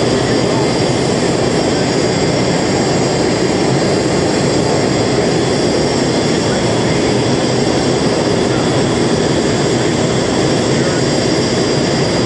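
Steady aircraft engine noise with a faint high whine over it, unbroken throughout.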